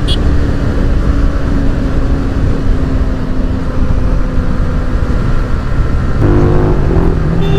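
Yamaha FZ V4's single-cylinder engine running through an aftermarket exhaust while the bike is ridden at speed, under heavy wind rush on the microphone. The engine note falls slowly through most of it, and a second steady tone joins about six seconds in.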